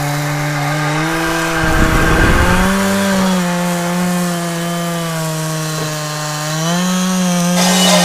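Stihl two-stroke chainsaw cutting firewood, its engine pitch sagging and recovering as the chain bites into the wood. There is a brief low rumble about two seconds in.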